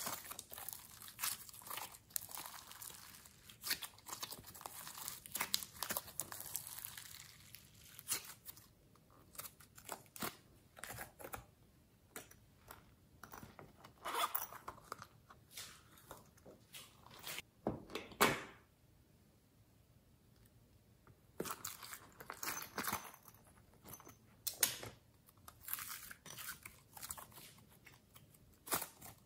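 Hands squishing, pressing and stretching slime: irregular sticky crackles, pops and tearing sounds, with a short lull about two-thirds of the way through.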